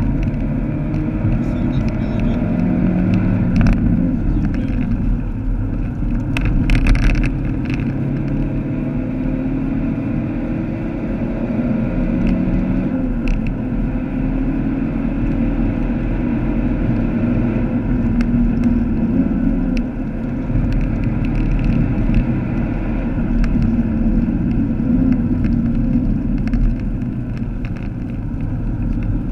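Vauxhall Astra VXR's turbocharged 2.0-litre four-cylinder engine driven hard at track speed, its pitch rising and falling as it accelerates and changes gear, over steady road and tyre rumble, heard inside the cabin. A few short clicks sound in the first quarter.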